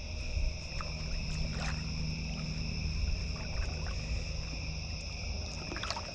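Night insects chirring steadily over a low rumble of river water, with a few faint clicks and small splashes while a small channel catfish is reeled in on a bent rod.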